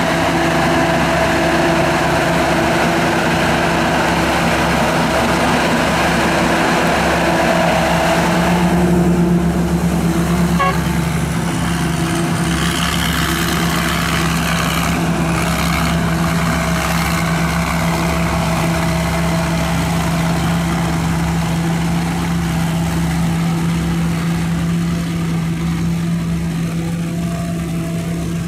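Combine harvester's 260-horsepower turbocharged engine running steadily under a broad rushing noise, which drops away about nine seconds in and leaves the steady engine hum.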